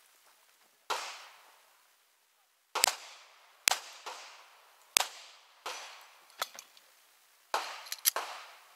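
A string of about ten semi-automatic pistol shots, fired unevenly with several in quick pairs, each trailing off in a short echo.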